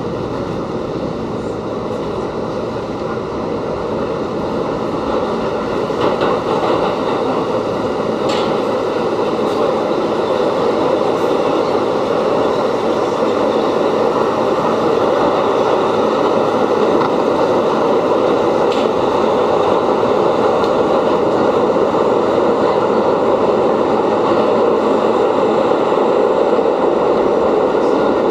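R68 subway car running on the rails, heard from inside the car: a steady rumble that grows louder over the first several seconds as the train gathers speed out of a station into the tunnel, with a few faint clicks along the way.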